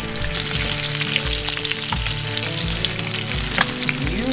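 Floured, egg-dipped fish fillets frying in a hot nonstick pan of olive oil and butter: a steady sizzle with scattered small pops and crackles.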